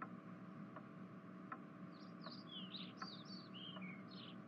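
Faint room ambience: a clock ticking evenly, a little more than once a second, over a low steady hum. Partway through, a quick run of small bird chirps comes in and stops just before the end.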